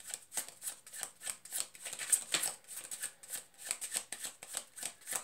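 A deck of cards being shuffled by hand, the cards slapping together in short strokes about three times a second, loudest a little past the middle.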